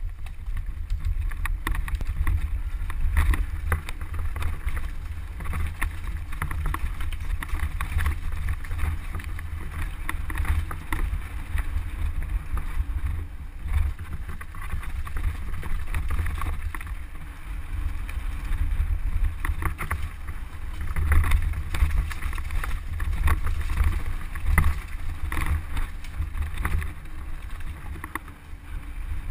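Mountain bike descending a rocky dirt trail at speed: tyres crunching over loose stones and the bike rattling and clattering over the bumps, with wind rumbling on the microphone.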